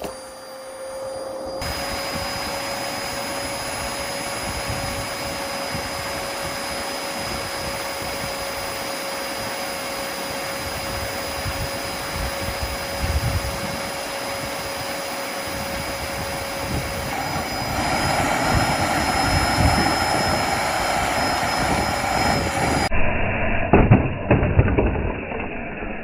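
Dyson DC33 upright vacuum cleaner running flat out with a steady motor whine while its hose sucks muddy water into the clear bin. About two-thirds of the way in the sound turns louder and rougher. Near the end it breaks into a few sharp knocks.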